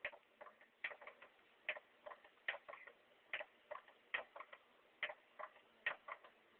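Faint, regular ticking: a sharp click about every 0.8 seconds with softer clicks between.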